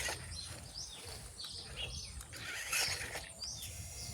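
Small birds chirping, a string of short rising calls, over steady outdoor background noise. Two louder rough, scraping bursts stand out, one right at the start and one a little under three seconds in.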